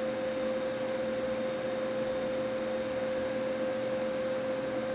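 A steady electronic tone held at a single middling pitch without any change, over a faint hiss.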